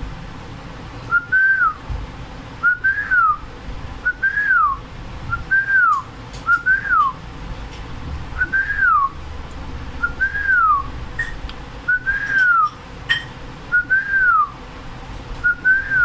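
A clear whistle, one short note that rises and then falls, repeated about ten times at roughly one-and-a-half-second intervals.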